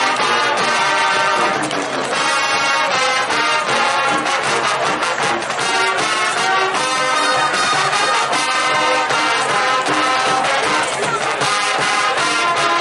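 A high school marching band playing, the brass section carrying the tune over the drums.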